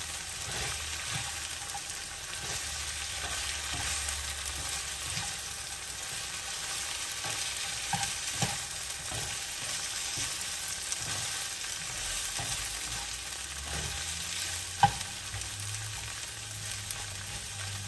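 Sliced bitter melon sizzling in hot oil in a frying pan while a spatula stirs and turns it, with scattered light knocks and scrapes of the spatula on the pan and one sharper knock late on.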